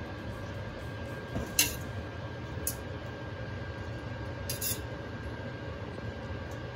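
Metal tongs clinking against a stainless steel pot and bowl while boiled cassava pieces are lifted from one to the other: a few sharp clinks, about a second and a half, two and a half, and four and a half seconds in, over a steady low hum.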